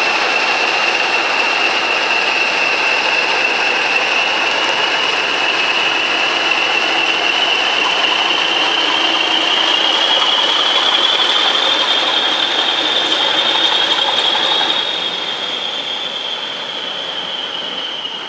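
English Electric Class 40 diesel locomotive pulling away under power, its engine noise topped by a loud, steady, high-pitched turbocharger whistle. The whistle rises slightly in pitch midway, and everything fades near the end as the locomotive draws away.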